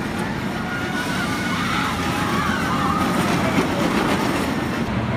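Steel roller coaster train running along its track overhead: a steady rumble and rush, with faint higher wavering sounds in the middle.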